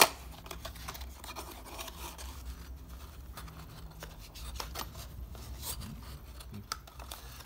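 Small cardboard bulb box being handled: the flaps rub and scrape as hands open it and work the halogen bulb out, with scattered faint clicks and one sharp click at the start.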